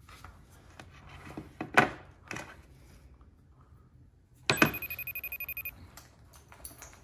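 Soft rustling and clicks of a mobile phone being handled and tapped, with one sharper click. About four and a half seconds in, a telephone rings for about a second as a fast, even trill.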